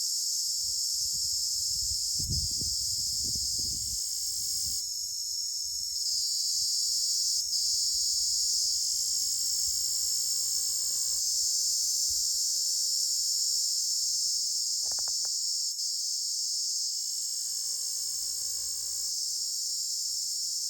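Cricket calling with a continuous high-pitched trill that holds steady throughout. A low rumble sits under it for the first few seconds.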